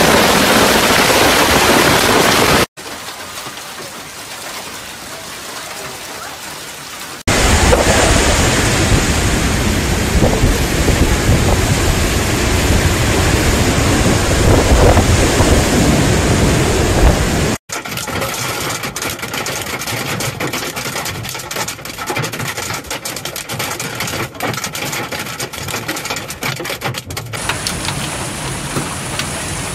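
Heavy rain and hail pouring down in a thunderstorm, heard as a steady hiss across several clips cut together. A louder, deeper stretch falls in the middle, and in the later part many sharp ticks of hailstones striking stand out over the rain.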